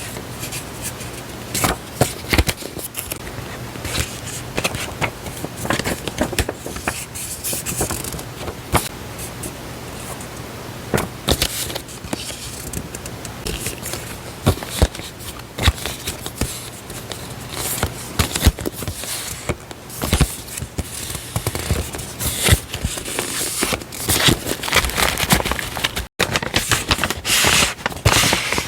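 Paper stationery being handled and unpacked: continuous rustling, crinkling and scraping of paper, with frequent small taps and clicks.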